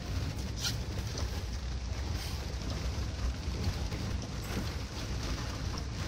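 Steady low rumble of a car driving through floodwater, heard from inside the cabin, with scattered ticks of rain hitting the windscreen.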